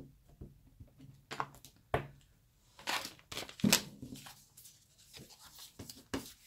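Clear plastic sheet protector and card stock being handled on a tabletop: several bursts of crinkling and rustling, with a few sharp knocks in between.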